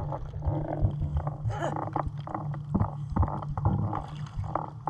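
Swimming-pool water sloshing and lapping against a camera at the surface, heard as a muffled low rumble with frequent small splashes and knocks.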